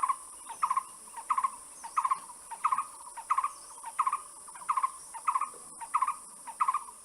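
A bird calling: a short, rapidly pulsed note repeated evenly about every two-thirds of a second, over a steady high hiss.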